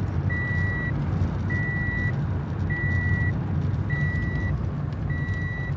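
A vehicle's electronic warning beeper sounding a single high tone in even beeps, about one every 1.2 seconds, over the low rumble of a car running on the road.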